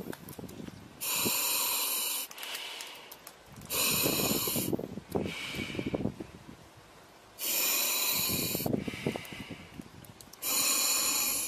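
A diver breathing through a breathing regulator: four loud hissing inhales about three seconds apart, with a rougher, lower sound between them.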